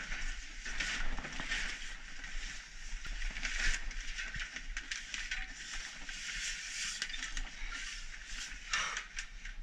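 A black mamba hissing in repeated breathy puffs, mixed with the crinkle of plastic bags, as the snake is held and drawn out from among them.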